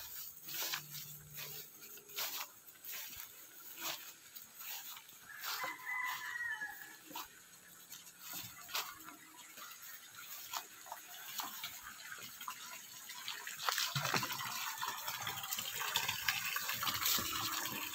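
Footsteps swishing and crunching through grass and dry leaves, with a rooster crowing faintly about six seconds in. From about fourteen seconds in, the steady rushing of a flowing stream becomes the loudest sound.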